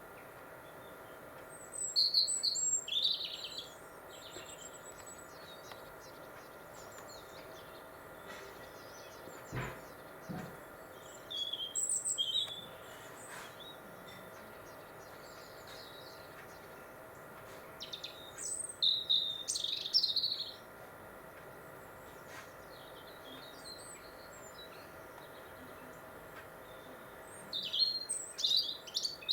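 European robin singing: four short, high, warbling phrases, each a second or two long, separated by pauses of several seconds.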